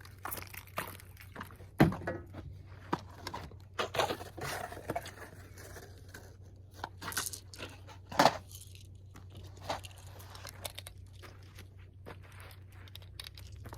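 Scattered clicks, knocks and crinkling handling noises over a steady low hum, with the two loudest knocks about two seconds in and about eight seconds in.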